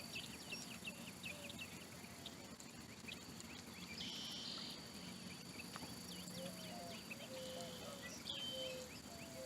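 Faint natural ambience of insects and birds: a steady high insect drone with a few short buzzing bursts, many quick chirps, and a repeated short lower call.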